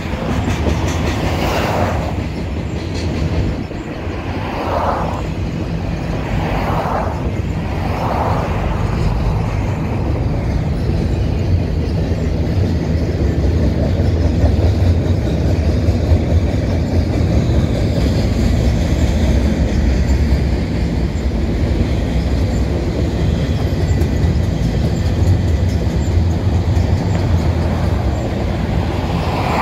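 Double-stack container freight train rolling past, a steady low rumble of wheels and cars on the rails. A few short whooshes of cars passing close by on the road in front come in the first several seconds and again at the very end.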